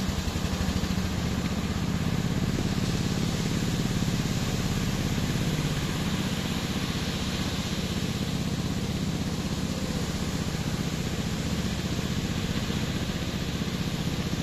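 Fishing boat's engine running steadily, a continuous, even throb.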